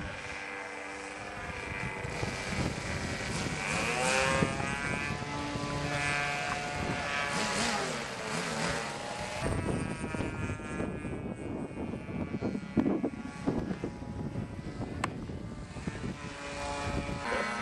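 Radio-controlled model aeroplane's engine and propeller in flight, its pitch repeatedly rising and falling as the plane manoeuvres and passes overhead.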